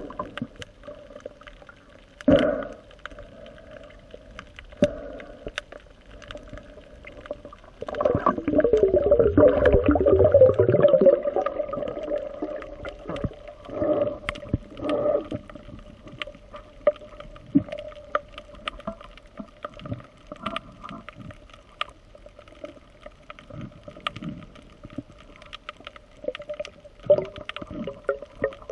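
Underwater ambience picked up through a camera housing: a steady drone with many scattered sharp clicks. From about eight to eleven seconds in there is a louder rushing, rumbling burst.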